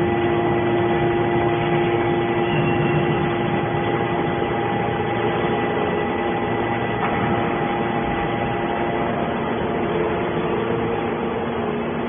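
Hydraulic system of a scrap metal baler running steadily: an even machine hum with a constant whine.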